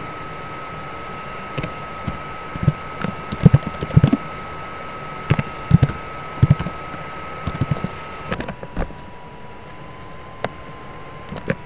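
Typing on a computer keyboard: irregular keystroke clicks in short runs. Under them is a steady high-pitched whine that steps down in pitch about eight seconds in.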